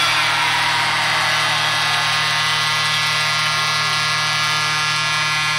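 Arena goal horn sounding one long, steady, many-toned blast for a home-team goal, over crowd noise.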